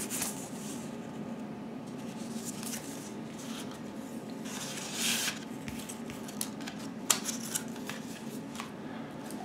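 Paper inner sleeve and cardboard mini-LP replica CD sleeves being handled: scattered short rustles and scrapes of paper and card, with a longer slide about five seconds in, over a faint steady hum.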